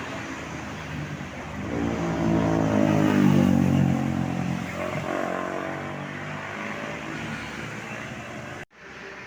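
A bus passing close by, rising to its loudest about two to four seconds in with a cluster of steady pitched tones, then fading. The sound cuts out abruptly near the end.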